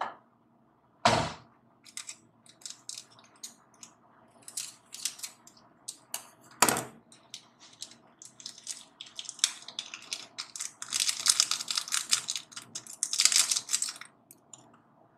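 Masala being added to a mixing bowl of half-boiled Maggi noodles and chopped vegetables: scattered clicks and crinkles, two sharp knocks, one about a second in and one near seven seconds, then a stretch of dense crinkly rustling and scraping from about nine to fourteen seconds.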